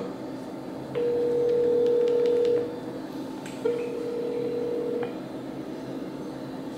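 Telephone ringback tone heard through a phone: two steady beeps, each about a second and a half long, with a short gap between them, while the call rings unanswered.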